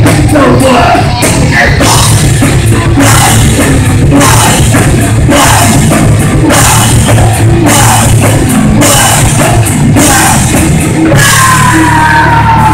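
Metal band playing live and very loud: distorted guitar and bass over a drum kit, with regular cymbal crashes. Near the end a sustained note slides down in pitch.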